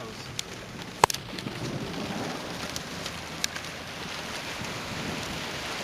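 Heavy rain on a car, a steady hiss with a few sharp taps of drops striking the body or glass, the loudest about a second in.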